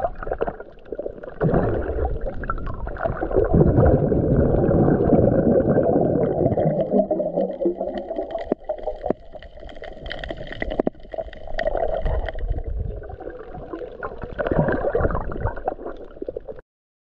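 Muffled underwater sound in a camera housing: water gurgling and sloshing in swells that rise and fall every few seconds, with a few sharp clicks in the middle. The sound cuts off suddenly near the end.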